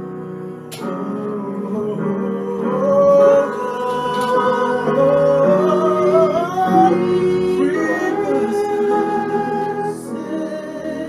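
Slow worship song: a solo singing voice carrying the melody over sustained instrumental accompaniment.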